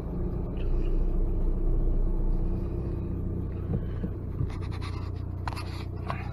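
Diesel car's engine and road rumble heard from inside the cabin while driving, a steady low hum. Toward the end, rubbing and knocking sounds from the handheld camera being moved.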